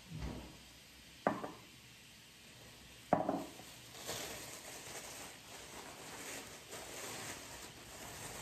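Glass jars set down on a granite countertop, two sharp knocks about two seconds apart after a soft thud, then a thin plastic shopping bag crinkling and rustling as hands dig through it.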